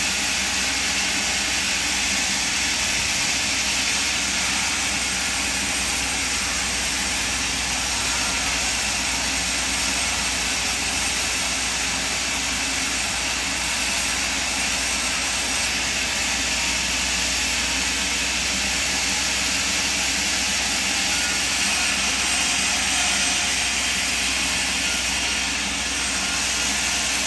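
Sawmill vertical band saw running and ripping a thick timber plank lengthwise: a steady, unbroken hiss of the blade in the wood over a low motor hum.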